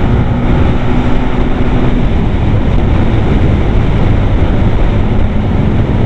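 Motorcycle riding at a steady speed: the engine running under a loud, even rush of wind and road noise.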